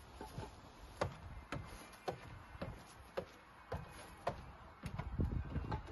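Footsteps at a steady walking pace, about two a second, then heavier low thuds in the last second as feet climb wooden stairs.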